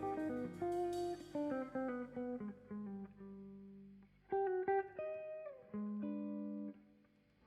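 Background music: a plucked guitar melody of short notes falling in steps, then a few held notes, with the sound dropping away near the end.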